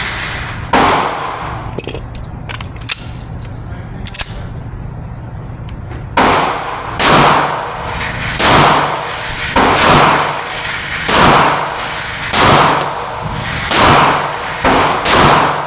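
Hi-Point C9 9mm pistol firing: one shot about a second in, then after a pause a steady string of about eight shots, roughly one every second or so.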